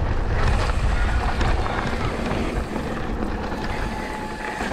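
Wind buffeting the microphone in a steady low rumble, with scattered light clicks and rattles.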